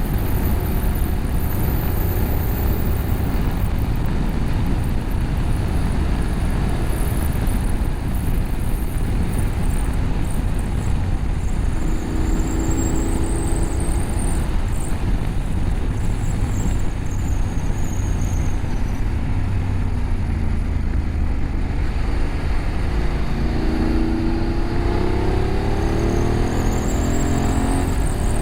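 BMW F850GS parallel-twin engine through an Akrapovic slip-on exhaust with a catalytic-converter bypass, running under way over a steady rush of wind and road noise. The engine note stands out a little past the middle and climbs in pitch near the end as the bike accelerates.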